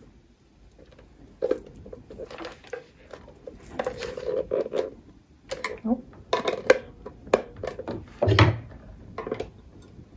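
Metal wire beaters clicking and clinking as they are handled and pushed into the sockets of a plastic hand-mixer head, with irregular knocks of handling and a heavier thump about eight seconds in.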